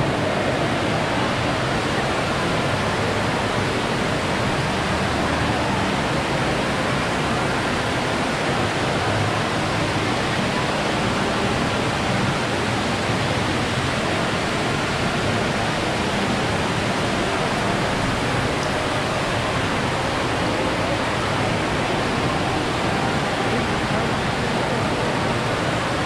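Steady, even wash of crowd noise from a busy shopping mall: many people's indistinct voices blending into one unbroken hiss-like murmur.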